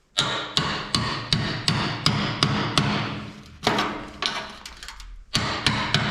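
Hammer driving a chisel against the rusted steel muffler of a wheel loader: a rapid run of sharp metallic blows, about three a second, with two brief pauses, working the seized muffler loose.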